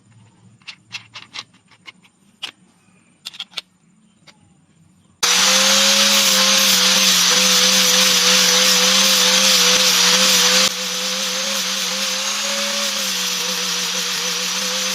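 A few light clicks, then an electric power tool starts abruptly about five seconds in and runs steadily at a constant speed, with a slightly wavering hum. It drops a little in loudness about two-thirds of the way through and keeps running.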